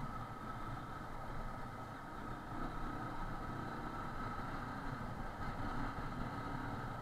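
Small single-cylinder commuter motorcycle engine running steadily while riding at low speed through town, with road noise and a steady high-pitched whine over it.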